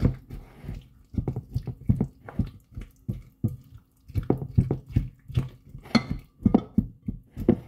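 Spatula stirring a wet strawberry mixture in a ceramic bowl: irregular wet slaps and squelches, with light knocks of the spatula against the bowl.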